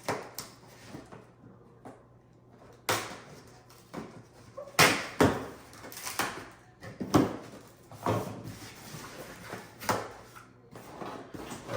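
Cardboard accessory box being opened and its packed parts handled: a string of irregular knocks, thumps and scrapes with rustling between them.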